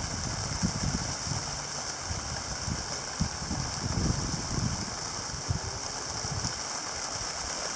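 Heavy rain from a convective shower: a steady hiss, with irregular low thumps and rumbles.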